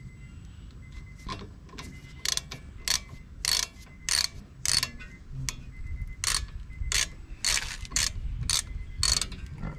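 Socket ratchet wrench clicking as it is swung back and forth turning a brake caliper bolt, a steady run of short sharp clicks about one every two-thirds of a second, starting about a second in.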